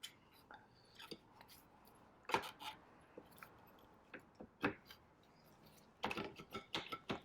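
Faint, scattered light metallic clicks and knocks as an electric scooter's rear wheel is worked into place, its axle ends seating in the frame slots and the brake rotor meeting the caliper. A quicker run of clicks comes near the end.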